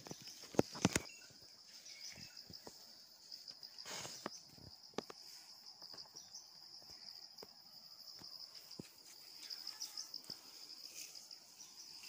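Steady high-pitched chirring of insects, with scattered sharp clicks, the loudest about a second in.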